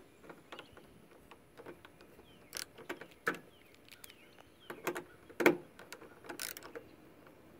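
Ratchet handle driving a T27 Torx bit, clicking irregularly as the door latch bolts are tightened, with a few sharper clicks, the loudest about five and a half seconds in.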